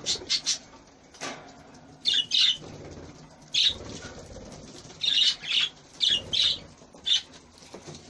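Budgerigars in an aviary: short, sharp chirps and wing flutters, often in quick pairs, about once a second.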